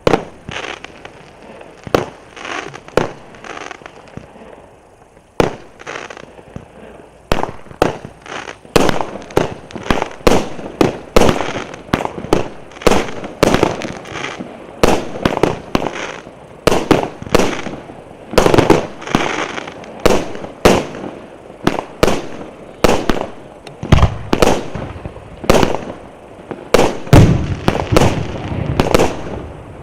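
'Tornado C101' fireworks battery (салют) firing: a long string of sharp shot bangs, each with a short ringing tail. They come a second or more apart at first, then rapidly, several a second, from about eight seconds in.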